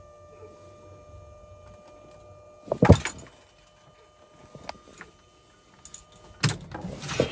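Semi truck's dashboard warning buzzer sounding with the key on: one steady held tone that stops about six and a half seconds in. Knocks and clicks of handling in the cab cut across it, the loudest about three seconds in and another just as the tone stops.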